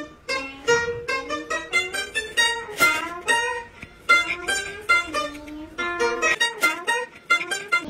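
Background music: a bright melody of quick plucked-string notes, several a second.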